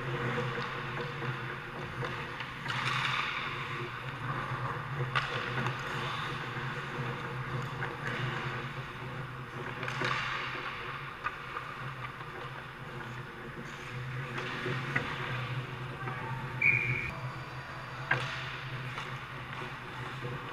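Ice hockey play heard from behind the net: skates scraping and carving the ice in swells, with sticks and the puck clacking now and then, over a steady low arena hum.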